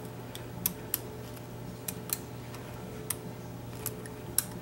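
Lishi HU100 pick working the wafers of a Chevrolet wafer-type car door lock under tension, giving about six small, sharp, irregularly spaced clicks as the pick's arm pushes on individual wafers. A faint steady hum runs underneath.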